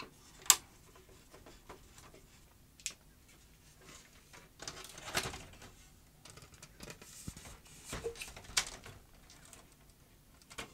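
Screwdriver working the case screws of a Sony CHC-CL5MD mini hi-fi, then its metal top cover being lifted off. Scattered sharp clicks, with a longer scrape about five seconds in.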